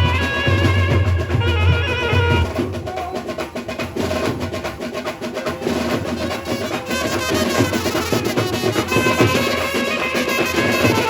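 Dhumal band playing a sawari dhun: a held saxophone melody over heavy bass, breaking after about two seconds into a passage of dense drum strokes, with the melody coming back in the second half.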